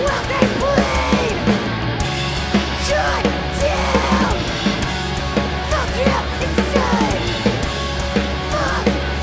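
A live hardcore punk band playing: distorted electric guitars, bass and drums, with shouted vocals over them.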